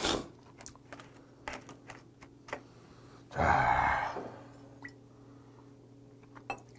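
Scattered light clicks and taps from chopsticks and a glass soju bottle being handled at a table.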